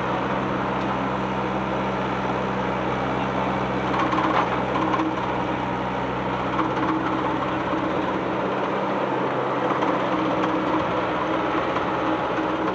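Excavator's diesel engine running steadily with its rattling 'trtrtr' note, briefly a little louder about four seconds in.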